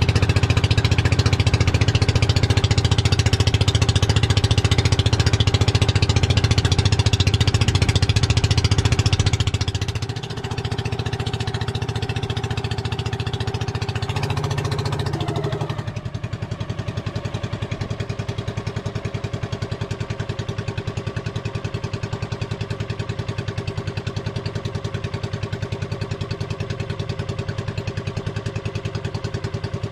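Engine of a motorized outrigger boat running steadily under way. It is loud for the first ten seconds, dips briefly, then settles into a quieter, lower running about halfway through, as if throttled back.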